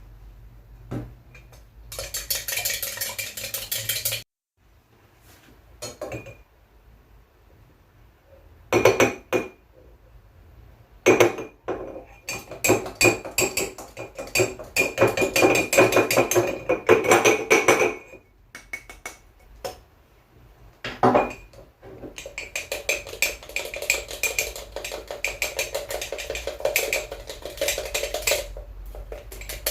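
Pancake batter being whisked: a metal utensil clicks rapidly against a bowl in three long bouts, with a few single clinks between.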